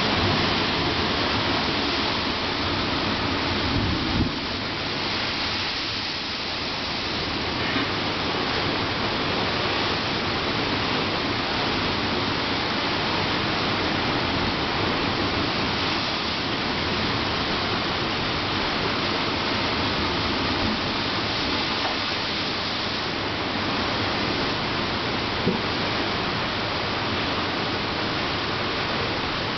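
Ocean surf breaking over shoreline rocks and washing across the water: a steady rushing noise with no let-up.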